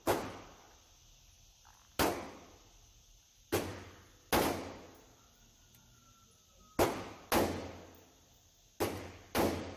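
CZ Bren 805 S semi-automatic rifle firing 5.56 mm rounds, eight shots at an uneven pace, several in quick pairs about half a second apart. Each shot is a sharp crack with a reverberating tail from the indoor range.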